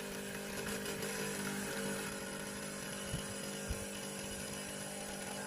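HiBREW H10B espresso machine's pump humming steadily through a cold brew extraction, then cutting off suddenly.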